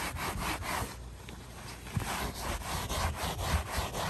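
Paper towel rubbed briskly back and forth over a Kool Seal-coated mobile home roof around a cut vent hole, a quick run of scrubbing strokes that pauses for about a second, then starts again.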